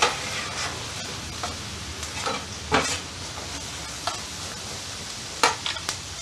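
Sliced bell peppers and onions sizzling on a hot flat-top griddle while metal spatulas scrape and clack against the steel as they are stirred. The loudest strike comes about three seconds in, and two more come close together near the end.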